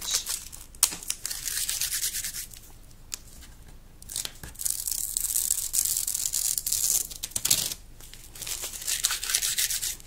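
Masking tape being peeled slowly off the edges of a painting on paper: a raspy tearing in three long stretches with short pauses between.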